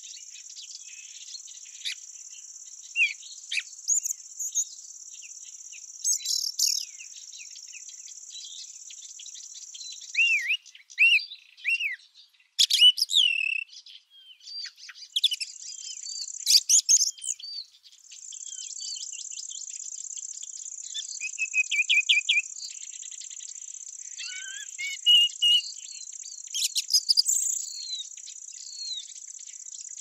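Summer outdoor ambience: an insect's steady, high-pitched trill, with small birds chirping and singing over it. The trill breaks off about a third of the way in and comes back a few seconds later.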